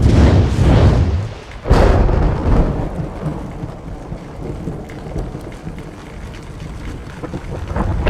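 Thunderstorm sound effect in a remix: two thunderclaps, one at the start and one just under two seconds in, each with a deep rolling rumble, fading into a steady wash like rain.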